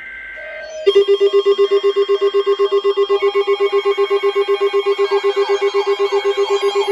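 Electronic alarm tone: a loud, rapid trilling pulse, about nine beats a second, that starts about a second in after a couple of short steady beeps. From about five seconds in, sweeping up-and-down whoops join it.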